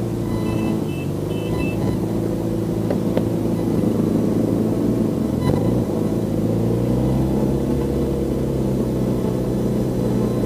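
Motorcycle engine running steadily under way, with wind rumble; about five seconds in the engine note dips and then climbs back up.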